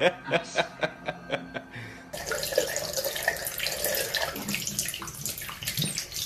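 A fast, even run of light knocks, about five a second, then, about two seconds in, tap water starts running steadily into a sink.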